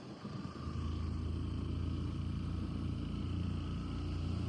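Steady low rumble of a vehicle on the move, engine and road noise together. It is quieter for the first moment, then settles into an even drone from about a second in.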